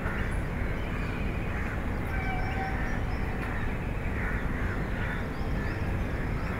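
Crows cawing again and again over a steady low rumble of background noise.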